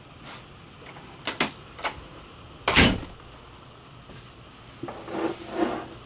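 Wooden interior door of a travel trailer being handled: a few light clicks of the latch, one loud knock about three seconds in, then a short rubbing creak near the end.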